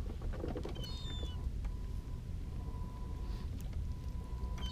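Low steady rumble on a small boat, with scattered clicks as a spinning rod and reel are handled, a faint steady high tone, and a short high chirp about a second in.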